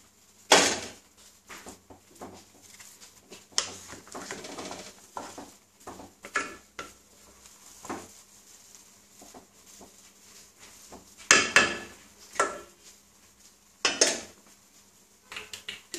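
Wooden spatula mixing cooked rice in a coated pot: soft scraping and irregular knocks against the pot, with a few sharp clatters, the loudest just after the start and a cluster in the last few seconds.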